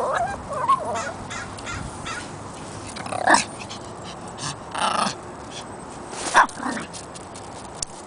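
Pomeranian whining with a wavering pitch in the first second, then giving about four short, sharp barks spread through the rest.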